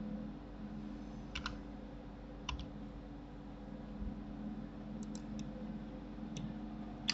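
Sparse clicks of a computer keyboard and mouse in a few small groups, about seven in all, over a steady low hum.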